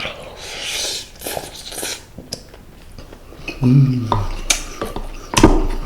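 Close-miked eating of seasoned kodari (semi-dried pollock) with rice: wet chewing and cutlery clicking against a dish. A short low hum comes about three and a half seconds in, and a sharp knock, the loudest sound, comes near the end.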